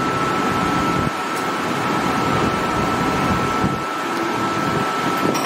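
Steady mechanical hum with a constant high-pitched whine.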